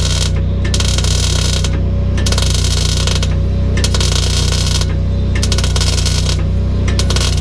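Electric arc welding on a Dana 60 rear axle: the arc crackles in runs of about a second, each broken off for half a second before the next, as short stitch welds are laid. A steady low hum runs underneath.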